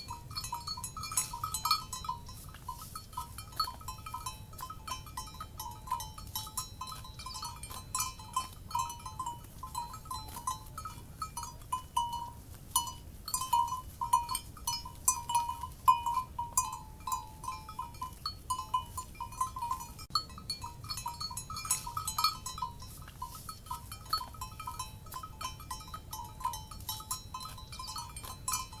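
Many cowbells clanking and ringing at irregular intervals, as from a herd of livestock on the move, over a steady low background rumble.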